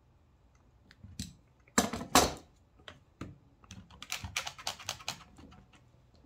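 Bar clamps being handled on a wooden workbench: plastic and metal clacking, with a loud double clatter about two seconds in as a clamp is set down, then a quick run of small clicks from the clamp's jaws and handle.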